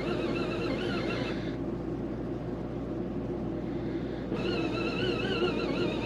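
Small folding bucket washing machine running and agitating a load of laundry in water, its motor giving a wavering whine. The whine stops about a second and a half in and comes back about four seconds in, while a lower churning goes on underneath.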